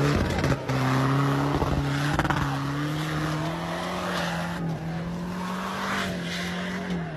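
Pickup truck engine held at high revs, a steady drone that slowly rises in pitch and drops near the end, as the truck drives hard through loose dirt. Thuds near the start and again about two seconds in as the truck lands and bounces.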